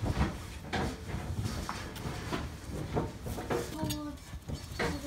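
Small red plastic toy shovel scraping and scooping soil, a run of short, irregular scrapes and knocks.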